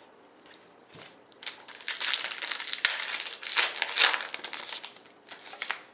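Plastic card-pack wrapper crinkling as it is handled and torn open, in dense bursts that start after about a second and a half of quiet and die away near the end.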